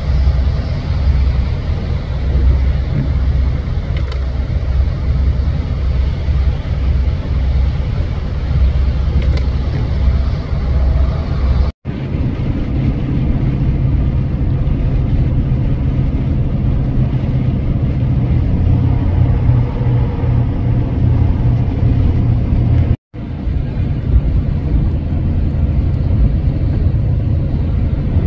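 Steady low rumble of a vehicle driving on a wet, slushy, snow-covered highway, road and tyre noise heard from inside the vehicle. The sound drops out abruptly twice, about twelve seconds in and again about 23 seconds in.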